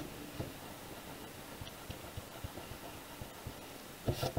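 Eraser rubbing faintly over paper with scattered small ticks, then about four seconds in a few louder quick swishes as a hand brushes across the paper, clearing away eraser crumbs.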